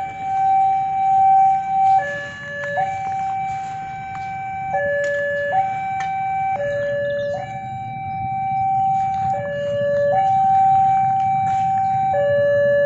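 Railway level-crossing electronic warning alarm sounding its two-tone signal, a long high tone then a shorter low tone, repeating about every two and a half seconds. A low rumble grows louder underneath in the second half.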